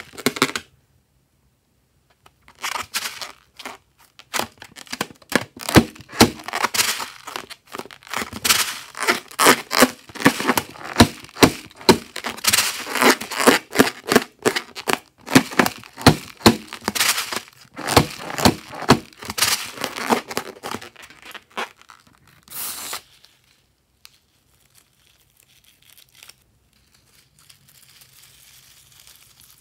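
Glossy slime being pressed and squished by hand, a dense run of crackling, popping clicks that goes on for about twenty seconds, then drops away to a faint hiss near the end.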